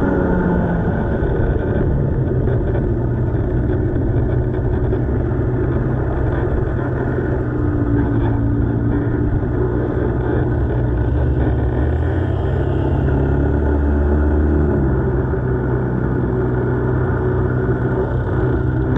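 Racing kart engine heard from onboard the kart, running continuously at a loud level. Its pitch rises and falls as the throttle is worked through the corners, with a steadier, lower stretch in the middle.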